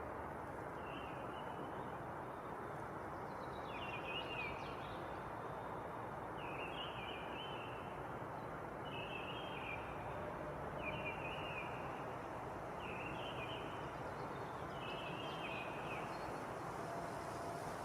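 A bird calling: about seven short, chirping calls repeated every two to three seconds over a steady outdoor hiss.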